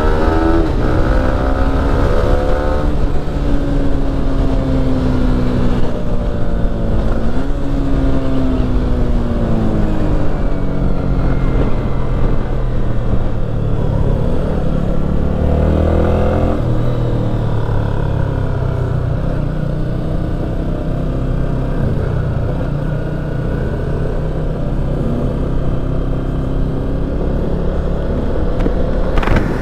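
Yamaha motorcycle engine on a track test ride, accelerating hard: its pitch climbs through the revs and drops sharply at each upshift, several times, then runs steadier at lower revs.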